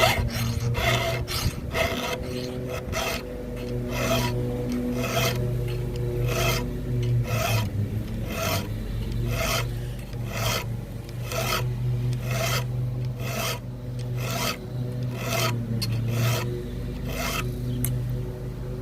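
Hand file rasping across a chainsaw chain's cutter tooth, with about two strokes a second, while the chain is sharpened in a vise. A steady low drone runs underneath.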